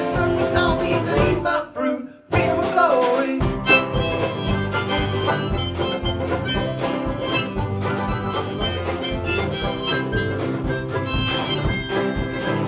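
Background music: the tune breaks off about two seconds in, and after a short gap a new tune with a steady beat starts.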